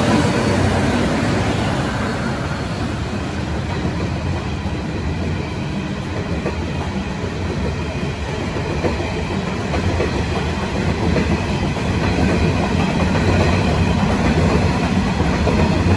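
Pacific National coal train passing close by. The second TT-class diesel-electric locomotive's engine is heard at the start, then a long line of coal hopper wagons rolls past on steel wheels, a steady rumble that swells again near the end.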